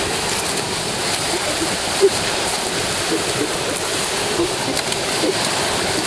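Surf breaking and washing up a sandy beach: a steady rush of waves and foaming water.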